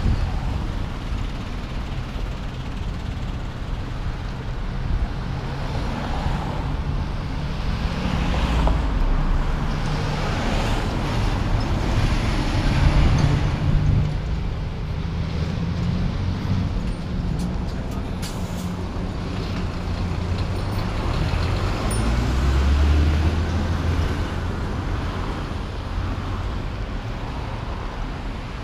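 Road traffic driving past close by: cars and a city bus, with engine hum that swells and fades as each vehicle goes by.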